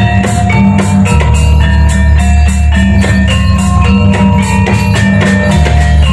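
Gamelan music for a kuda lumping dance, played loud through a sound system: metallophones ringing a busy melody over frequent drum strokes and a heavy bass.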